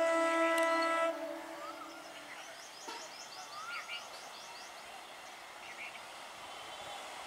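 An EMU local train's horn holding one long steady note that cuts off about a second in. After it comes the quieter running noise of the approaching train, with a few short high chirps over it.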